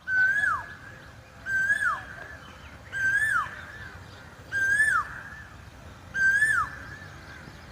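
Asian koel calling five times, about every second and a half: each call is a clear whistled note that rises briefly, then slides steeply down.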